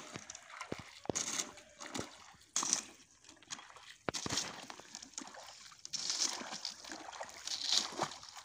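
Rubber boots wading through thin ice into shallow water: irregular splashes and sloshing, one step every second or two, as the ice breaks under each step.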